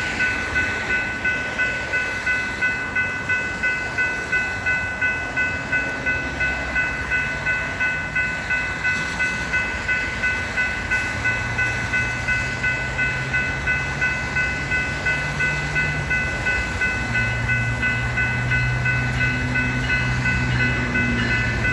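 Railroad grade-crossing bell ringing steadily, about twice a second, as a Metra diesel commuter train approaches. Partway through, the locomotive's engine drone comes in under the bell and steps up.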